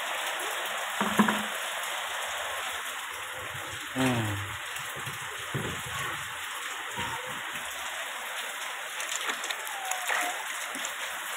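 Water running and splashing as frozen ice-pop moulds are rinsed of the salty brine, with a few short knocks of the moulds being handled.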